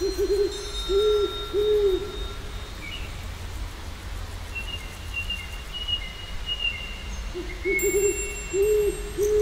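A bird's low hooting call, given twice: a wavering note followed by two round hoots. Between the calls come thin, steady high whistles of other birds.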